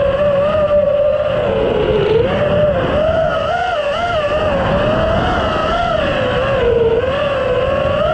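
Onboard audio of a freestyle FPV quadcopter's brushless motors (Rotor Riot Hypetrain 2306 2450kv) spinning its propellers. The motor whine runs continuously, its pitch rising and falling again and again as the throttle changes through the flight.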